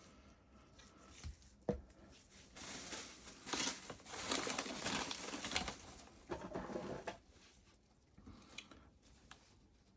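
Handling noises: two light clicks, then a few seconds of rustling, like packaging or plastic being moved about.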